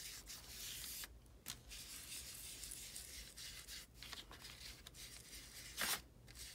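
Foam ink-blending tool being rubbed and dabbed over the edges of a sheet of copy paper and into an ink pad: a faint, dry, scratchy rubbing that comes in stretches with short pauses, with one brief louder scuff about six seconds in.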